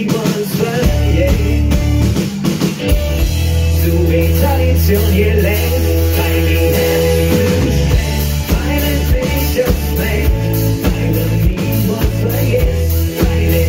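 Live rock band playing loud, with drum kit, bass, guitar and singing.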